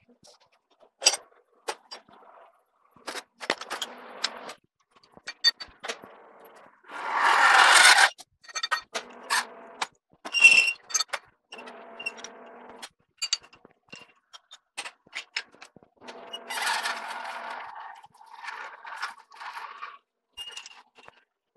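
A twist drill fed from a metal lathe's tailstock cutting into the end of a turning steel bar: intermittent scraping cutting noise with metallic clicks and rattles. Two louder, longer stretches of cutting come about seven and seventeen seconds in.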